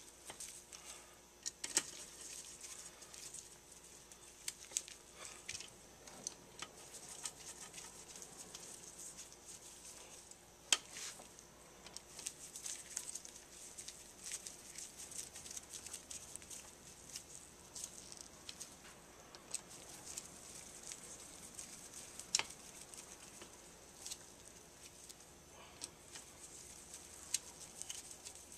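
Screwdriver tightening the screws that hold a Holley carburetor's center section to its base plate: faint scattered ticks, scrapes and small metal clicks, with a few sharper taps.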